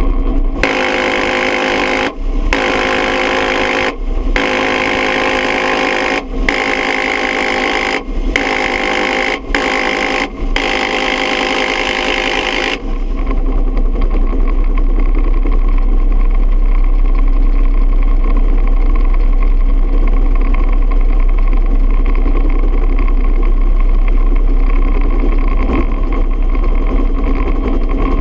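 Dillon Aero M134 minigun firing linked 7.62×51mm at about 50 rounds a second from a UH-1 Huey helicopter: seven long buzzing bursts, each one to two seconds, with brief breaks between, over the helicopter's steady turbine and rotor noise. The firing stops about thirteen seconds in, leaving only the Huey running steadily.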